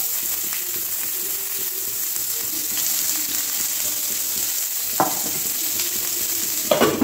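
Sliced onions sizzling in hot oil in a kadai: a loud, steady frying hiss that starts suddenly as they go in. There is a knock about five seconds in and another near the end.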